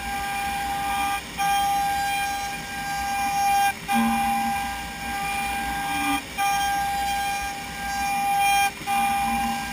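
Format4 CNC machining centre's router spindle whining at a steady high pitch while milling. The sound drops out briefly about every two and a half seconds, four times.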